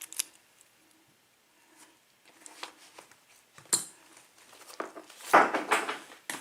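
Small metal lock parts clicking and scraping as a disassembled pin-tumbler lock cylinder is handled, with a few separate sharp clicks and a louder rattling scrape near the end.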